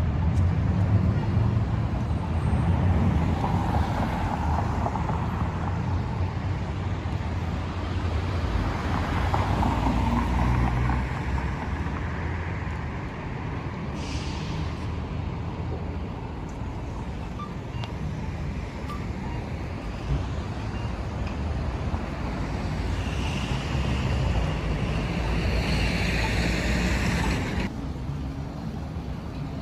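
Steady road traffic on a city street: a low rumble of engines and tyres from passing vehicles. A short hiss comes about halfway through, and a longer hiss near the end stops abruptly, like a bus or truck's air brakes.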